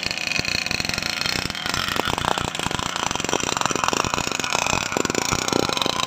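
Small engines of model racing powerboats running at idle on their stands, a rapid uneven rattle of firing pulses.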